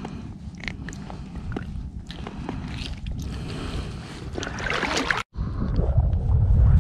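Small splashes and clicks of a fish being handled and rinsed in shallow river water, with a short burst of splashing just before five seconds in, over wind rumbling on the microphone. After about five seconds the wind rumble grows louder and steadier.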